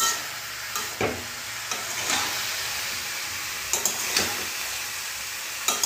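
Broccoli sizzling as it stir-fries in a metal kadai, with a steady frying hiss. A metal spatula scrapes and knocks against the pan about once a second as the vegetables are tossed.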